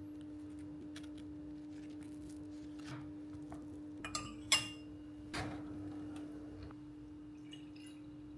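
Kitchenware being handled: a few light knocks, then a sharp ringing clink of glass or ceramic and one more knock, over a steady low hum.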